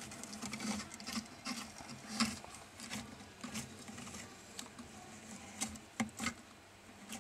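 A savannah monitor lizard chewing a piece of raw chicken breast: irregular wet clicks and smacks of its jaws, a few each second, with two sharper clicks about six seconds in.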